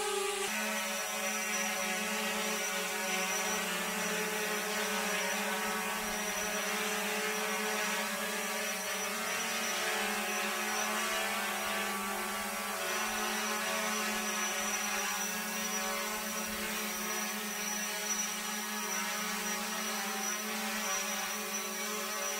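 Xiaomi Fimi X8 quadcopter hovering, its propellers making a steady hum with a strong low tone and even overtones over a constant rushing hiss.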